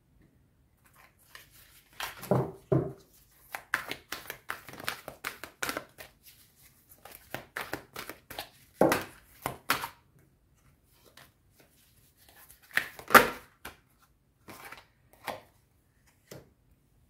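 Deck of oracle cards shuffled by hand in several short bursts of rustling, the cards flicking and tapping together, with a card set down on the cloth near the end.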